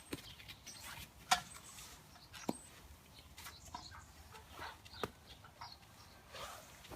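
Kindling and fire-lighter blocks catching alight in a Frontier stove's firebox: sparse sharp cracks and pops, three louder than the rest, over faint rustling.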